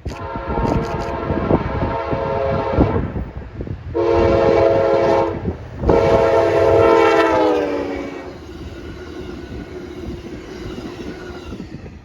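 Amtrak P42DC diesel locomotive passing at speed and sounding its multi-chime air horn in three blasts: a long one, a shorter one, then another long one whose pitch drops as the train goes by. Wheels clatter over the rail joints throughout, trailing off after the horn stops.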